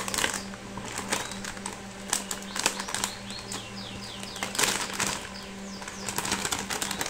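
Crinkling and rustling of a graphics card's metallic anti-static bag as it is handled and turned over, in many small irregular crackles, over a steady low hum.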